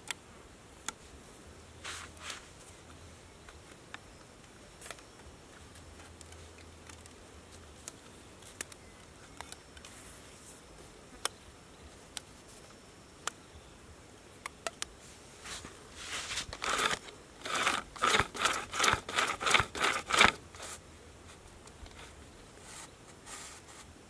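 Hands working thin bamboo sticks and wooden pegs on sandy ground: scattered small clicks and taps, then a run of repeated scraping strokes, about two a second, for roughly four seconds in the second half.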